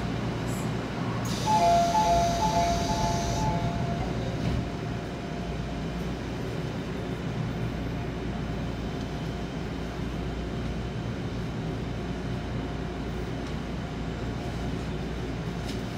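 Seoul subway car standing at a station platform with a steady low hum from the train. About a second in there is a burst of hiss and a short two-tone beeping that fades out within a few seconds, most likely the door-closing warning before departure.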